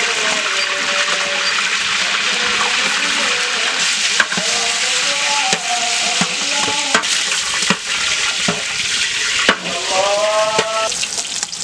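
Chickens for roast deep-frying in hot oil in a large aluminium pot, a loud steady sizzle. A long ladle stirring them knocks now and then against the pot.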